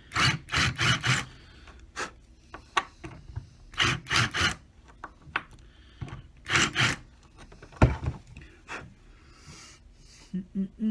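Cordless drill run in short spurts, its twist bit grinding into a brass heel plate to countersink the screw holes so the screws sit flush. It goes as quick rasping bursts in groups: four at the start, three a little before halfway and two past halfway, then a sharp click.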